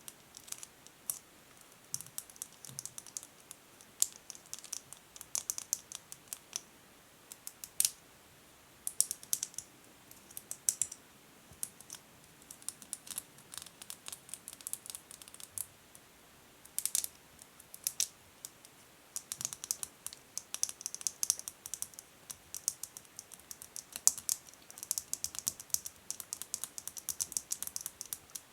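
Natural fingernails tapping and scratching on plastic: quick, irregular runs of light, crisp clicks in clusters, with short pauses between them.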